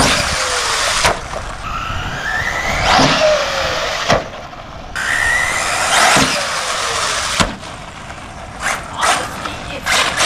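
Arrma Typhon 6S brushless RC buggy driven hard on dirt in repeated throttle bursts: the motor whine rises and falls in pitch with each burst, with a few sharp knocks.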